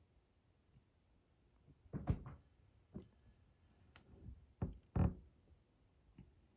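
Several irregular knocks and thumps over quiet room tone, the loudest a cluster about two seconds in and a single one about five seconds in.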